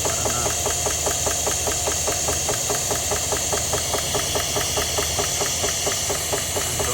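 2022 Chevrolet Suburban's pushrod V8 idling with a valve cover off and an even, rapid knock from the valvetrain. Cylinder 7 is misfiring, and the mechanic traces the knock to a bent exhaust pushrod and a pitted roller lifter on that cylinder.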